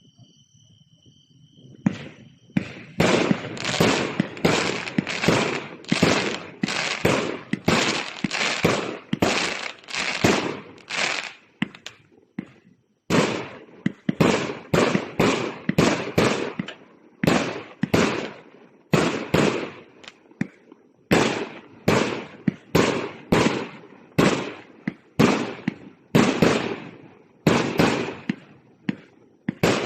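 A 1.2-inch, 200-shot firework cake firing: a fast string of sharp shots, each with a short crackling tail, about two a second. It starts about two seconds in and pauses briefly near the middle.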